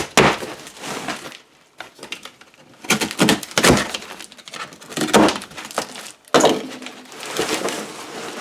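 Irregular knocks, clacks and scraping rustles of packing material being handled while a package of N52 neodymium magnets is unpacked.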